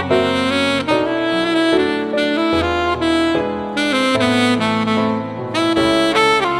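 Alto saxophone playing a slow, singing ballad melody of held and gliding notes over a backing track.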